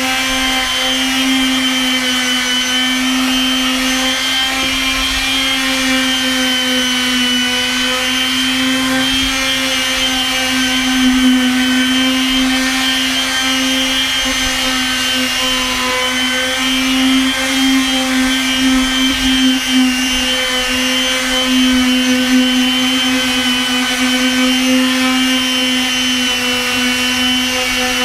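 Electric random orbit palm sander running without a break, a steady motor whine.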